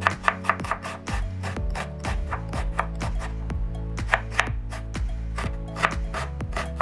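Kitchen knife chopping red onion on a wooden cutting board: an uneven run of sharp knocks of the blade on the board, a few a second, over background music.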